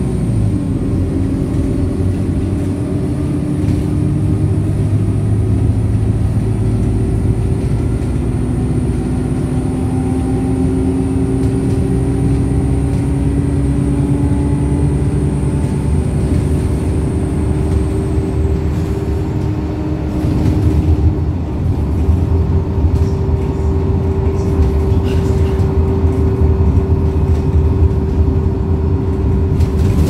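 Interior of a Wright StreetLite single-deck bus running at speed: a steady drivetrain and road rumble with a whine that slowly rises and falls in pitch. A faint high whistle stops a little past halfway.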